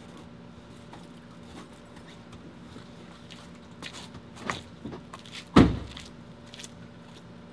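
Footsteps on wet pavement, a few short scuffs and steps, with a louder thump about five and a half seconds in, over a faint steady hum.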